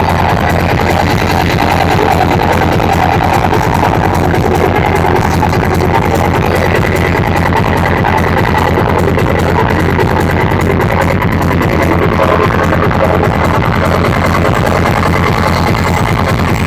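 Loud electronic dance music with a steady, driving bass beat, played over a stage sound system.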